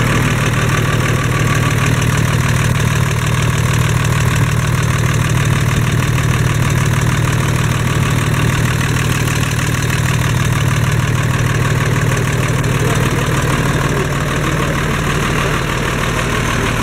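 Eicher-built 1980–81 Massey Ferguson 1102 tractor's air-cooled diesel engine idling steadily, heard close up beside the open engine bay.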